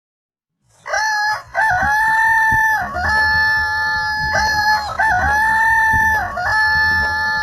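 Rooster crowing, starting about a second in: several long crows follow one another almost without a break, each rising at the start, holding a steady pitch and dropping off at the end.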